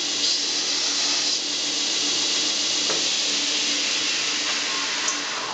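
Home-built 2x72 belt grinder, driven by a 2 hp electric motor through step pulleys, running on its second-slowest speed while metal is ground against the belt: a steady abrasive hiss over the motor's even hum.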